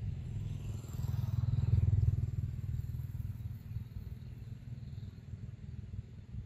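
A low rumble that swells about a second in, peaks, and then slowly fades.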